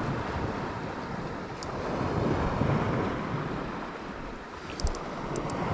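Wind buffeting the microphone over sea surf, the noise swelling and easing, with a few short sharp clicks near the end.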